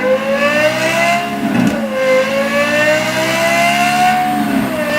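Lexus LFA 1LR-GUE V10 accelerating hard under load, its pitch climbing steadily, dipping briefly at two upshifts (about a second and a half in and near the end) and climbing again.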